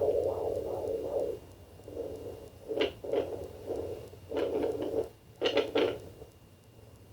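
Fetal doppler's speaker output. For about the first second there is a pulsing whoosh of a baby's heartbeat, a few beats a second. It then breaks into scratchy, scraping bursts as the probe moves over the belly, and fades to faint hiss near the end.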